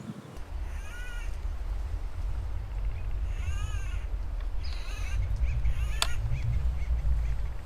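Acorn woodpeckers calling: three short bouts of repeated raucous calls, about a second in, around three and a half seconds in and near five seconds. A sharp click comes about six seconds in, over a steady low wind rumble on the microphone.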